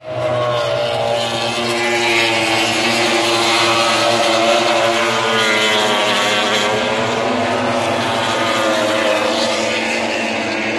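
MotoGP racing motorcycles' four-cylinder engines running at high revs as the bikes pass on the circuit, a continuous engine note that wavers gently up and down in pitch.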